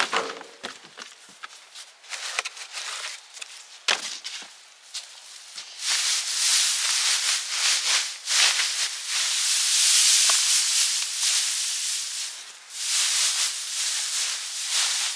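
Dry hay and leaf mulch rustling and crackling as it is handled and spread by hand. Scattered crackles and taps come first; from about six seconds in, a denser, louder rustle sets in, dips briefly, and picks up again near the end.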